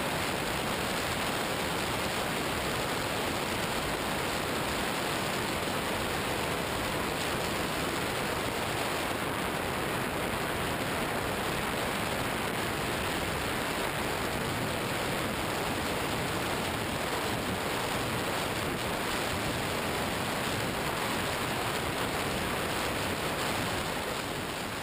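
Steady, even rushing hiss of wind on the onboard camera's microphone as the FPV flying wing cruises, with no separate motor tone standing out.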